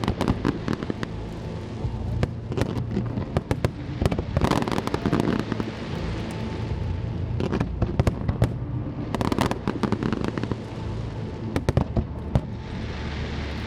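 Aerial fireworks going off in rapid, irregular volleys of bangs and crackles, with dense clusters about four, nine and twelve seconds in.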